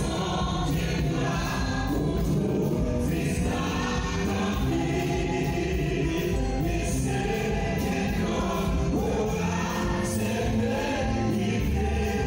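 Gospel worship song: a choir singing with instrumental backing, steady and full throughout.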